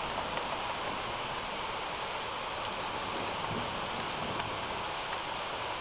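Rain falling steadily during a thunderstorm, an even hiss with faint drop ticks and no thunder.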